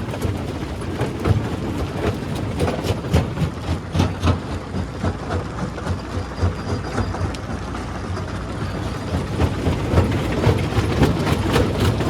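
Stone crusher machine running with a steady low drone, overlaid by rapid cracking and clattering of rocks being crushed, a little sparser midway and busier near the end.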